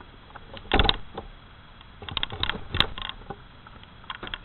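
Irregular handling knocks and clicks: a louder thump just under a second in, a cluster of quick clicks around two to three seconds in, and a few lighter ones near the end.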